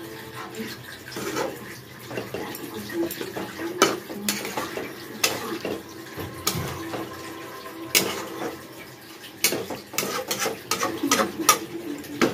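Steel spatula stirring a cabbage and potato curry in a non-stick kadai, clinking and scraping against the pan a dozen or so times. Underneath is the bubbling of water just added to the hot pan.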